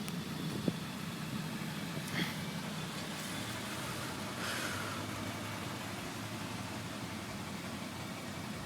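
Vehicle engine idling with a steady low hum, with two faint, brief higher sounds about two seconds and four and a half seconds in.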